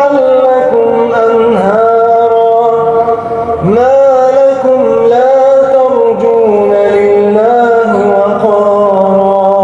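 A man chanting Quran recitation in long, melodic held notes with ornamented pitch turns. There is a brief pause for breath about three seconds in, then a new phrase begins with a rising swoop.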